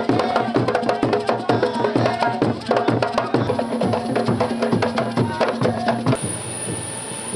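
Traditional drum troupe playing a fast, even rhythm of sharp strokes on hand drums and percussion. It cuts off abruptly about six seconds in, leaving a steady mechanical hum with a thin high whine.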